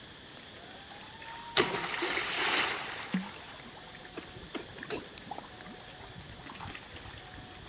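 Monkeys splashing about in a shallow pool of water: one loud splash about a second and a half in, lasting about a second, then scattered small splashes and drips.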